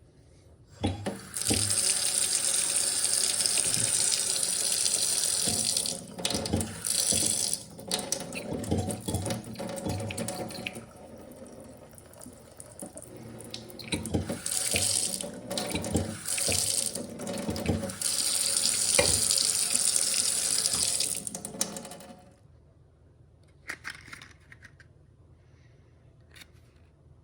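Kohler kitchen faucet running water into a sink. The stream goes uneven and sputters through the middle stretch, as with a failing diverter, before it steadies and is shut off about 22 seconds in. A few faint clicks follow.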